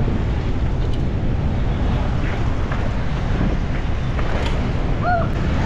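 Wind rumbling steadily on the microphone of a camera carried on a bicycle while riding, with road traffic noise underneath.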